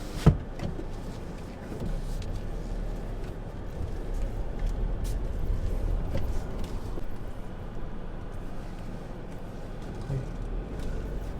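Road and running noise inside a 2019 Haval H4's cabin while driving over uneven road, a steady low rumble with one sharp knock just after the start and a few faint clicks. The door-seal creaking is gone after the rubber seals were rubbed with soap.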